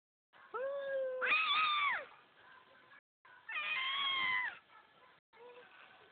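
Baby squealing: a long high call that leaps up into a shrill squeal about a second in, another long squeal around three and a half seconds in, and a short call near the end.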